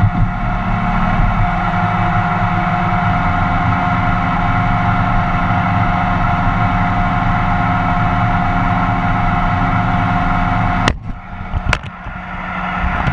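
Roomba robot vacuum running, heard close up from on the robot: a steady motor hum with a whine over it. About eleven seconds in a click comes, the whine stops and the sound drops, another click follows, and it builds back up near the end.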